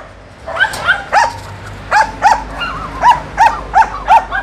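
Dog barking over and over in short, high yelping barks, starting about half a second in and settling into a steady run of about three a second.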